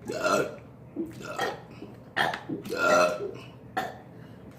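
A person burping, a series of short burps one after another, the loudest about three seconds in.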